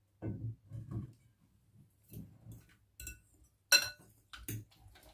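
Kitchenware being handled: a few dull knocks, then several clicks and clinks, the loudest a sharp ringing clink of a utensil against a dish about three-quarters of the way through.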